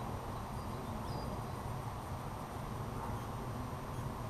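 Quiet outdoor background by a pond: a steady low rumble, with a faint short high chirp about a second in.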